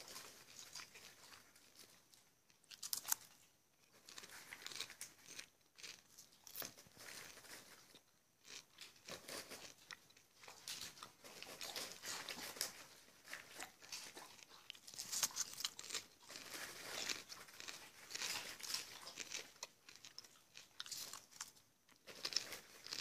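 Popcorn being chewed: irregular runs of crisp crunches with short pauses between them.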